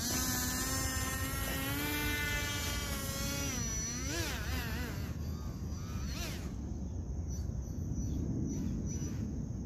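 Small RC speedboat's electric motor, running on a 4S battery, whining as the boat speeds away across the water: the pitch climbs slowly for the first few seconds, then wavers up and down with throttle and steering changes before fading into the distance. A steady low rumble runs underneath.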